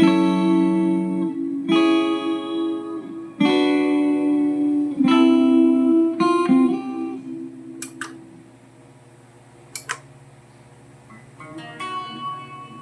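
Guitar played through a Mooer GE150 Pro LI multi-effects processor: four ringing chords about a second and a half apart, then a few single notes. After a quieter pause with two sharp clicks, more notes come in near the end.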